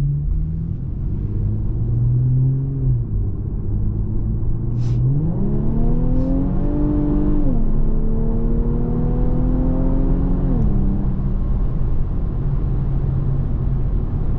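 Turbocharged Infiniti Q50S engine pulling under acceleration: steady at first, then rising in pitch about five seconds in, dropping once as it shifts up, holding, and easing off again near ten seconds in.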